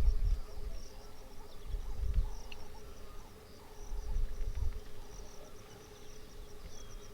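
Outdoor ambience of insects chirping in a fast, pulsing chorus over a steady hum, with three low rumbles: one at the start, one about two seconds in and one about four seconds in.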